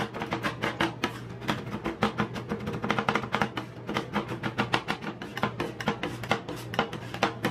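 Two metal spatulas chopping ice cream and corn biscuit pieces on the metal plate of a rolled ice cream machine: quick, uneven metal-on-metal taps, several a second, over a steady low hum.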